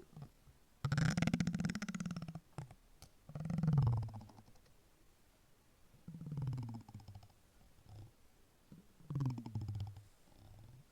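Silicone object made to vibrate, giving a low, rattly, purring-frog-like croak in four separate bursts of under two seconds each, the longest about a second in.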